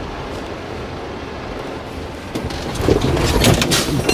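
Sisu off-road truck driving over rough, stepped terrain, heard from inside the cab: a steady engine and drivetrain rumble. About three seconds in there is a louder stretch of knocking and clattering as the truck goes over the obstacle.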